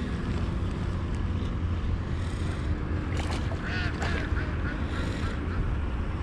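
Ducks quacking in a quick run of short calls about halfway through, over a steady low rumble of wind on the microphone.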